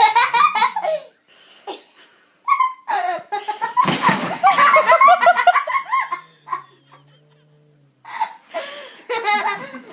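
People laughing hard in several bouts, with a short noisy burst about four seconds in.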